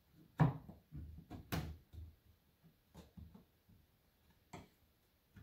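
Palisade grout-free vinyl wall tile being handled, slid and pressed into place against the neighbouring tiles on the wall: a handful of sharp knocks and clicks, the loudest in the first two seconds, with softer scraping between.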